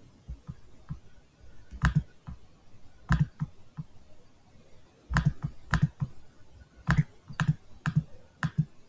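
Computer mouse button clicked about ten times at uneven intervals, each a sharp press-and-release click, coming more often in the second half.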